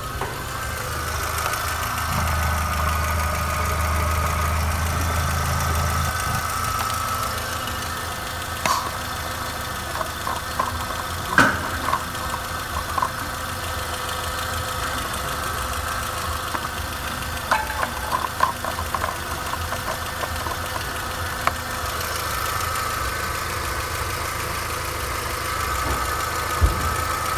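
VW Golf 4's 2.0-litre AQY four-cylinder petrol engine idling steadily, with a few sharp clicks and short runs of ticks around the middle.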